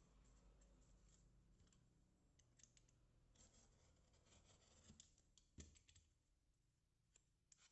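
Near silence, with faint scattered clicks and scratches of small retail packaging being handled and opened, and one sharper click about five and a half seconds in.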